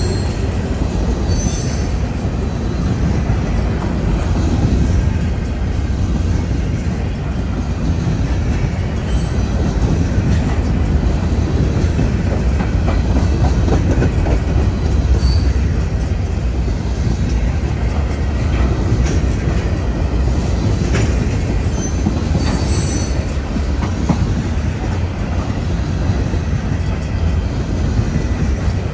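Covered hopper cars of a freight grain train rolling past close by: a steady, loud rumble of steel wheels on the rails, with a few brief high squeaks now and then.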